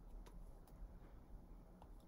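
Near silence: room tone with a low hum and a few faint clicks.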